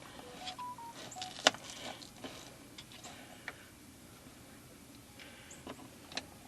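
Screwdriver prying at a Honda Pioneer 700's oil filter cover: scattered light metal clicks and taps with a few short squeaks near the start, the loudest click about a second and a half in.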